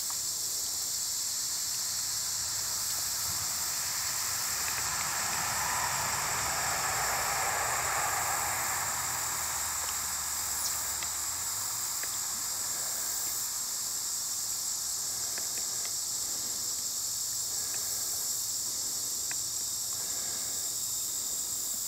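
Steady, high-pitched chorus of insects. A low rushing sound swells and fades away in the middle.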